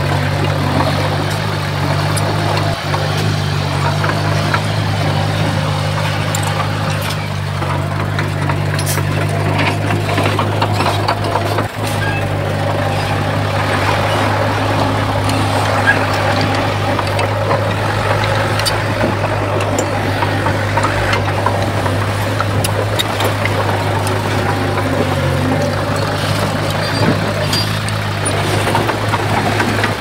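Heavy diesel earthmoving machine engine running steadily under work, with occasional clanks scattered through.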